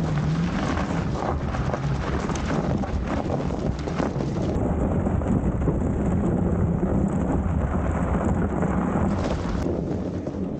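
Wind buffeting the action camera's microphone while riding an electric bike over packed snow, a steady noisy rumble with no engine note.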